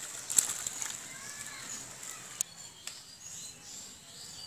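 Thick curry being tipped from a metal cooking pot into a ceramic bowl, with a few sharp clinks of metal on the bowl. The loudest clink comes about half a second in.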